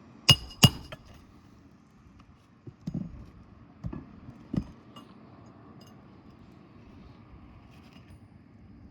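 Metal hand tool striking during a roof shingle repair: two sharp metallic clinks with a short ring close together in the first second, then three duller knocks a few seconds later.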